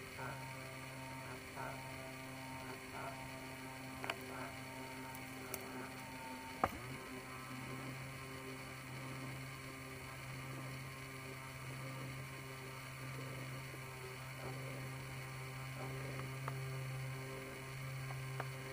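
A steady low electrical or mechanical hum, with a few faint clicks, the sharpest about a third of the way in.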